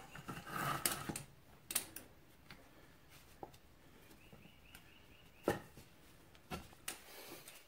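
Scattered metallic clicks and light taps from hand tools and parts being handled while a retaining spring clip is worked back into place on an ATV axle assembly, the sharpest click about five and a half seconds in. Faint, quick, repeated bird chirps can be heard in the background.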